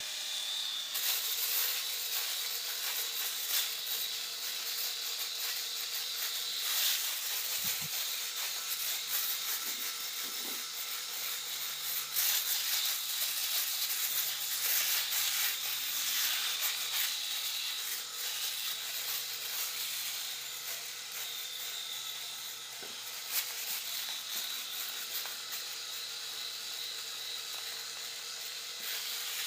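Cordless electric razor running and cutting stubble as it is moved over a man's face: a steady high hiss with a faint motor whine, its loudness wavering with the strokes.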